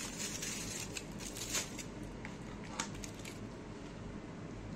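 Aluminium foil crinkling and rustling as a foil-wrapped food parcel is handled, with a few sharp crackles between about one and three seconds in.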